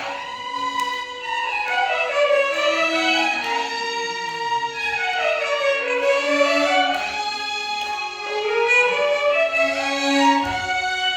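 Violin orchestra playing Carnatic music, the melody sliding down and back up in pitch several times in long sweeps over held lower notes.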